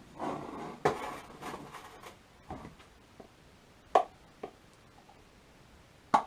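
Workshop handling noise as tools and metal parts are worked by hand: a brief rustle and clatter, then several separate sharp clicks and knocks, the loudest about a second in, near four seconds and just before the end.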